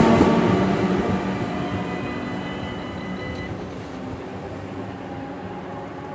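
NS 1700-class electric locomotive and DD-AR double-deck carriages running past and away, their rumble on the rails fading steadily. A few faint high steady tones sound for a couple of seconds near the middle.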